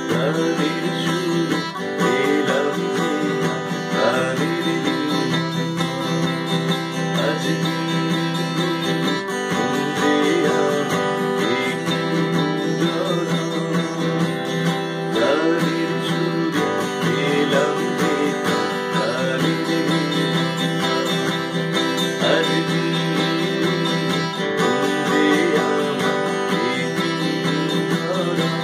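A man singing a Bengali song while playing an acoustic guitar as accompaniment.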